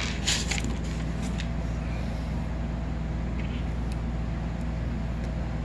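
A few brief clicks and rustles of an arm bumping and brushing the camera in the first half-second, then a steady low mechanical hum in the room.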